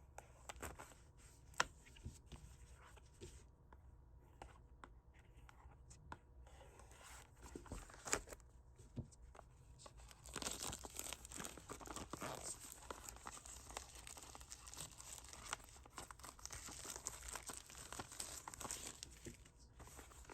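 Product packaging being opened by hand: faint scattered clicks and rustles at first, then about ten seconds in a continuous tearing and crinkling of the wrapping that runs on to the end.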